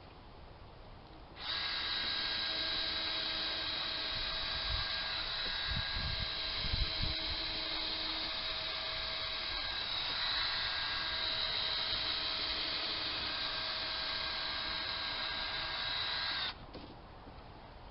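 Electric drill motor running at a steady high-pitched whine for about fifteen seconds, starting about a second and a half in and stopping suddenly near the end, with a few low thumps in the middle.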